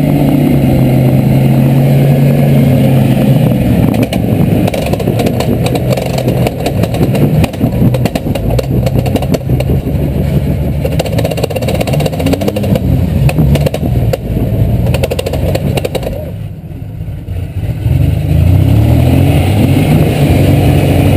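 Lifted Ford pickup's engine revving hard under load, rising and falling as the truck claws up a steep bank over a log on big mud tires, with tires scrabbling in mud and leaves. The revs drop for about two seconds near the end, then pick up again.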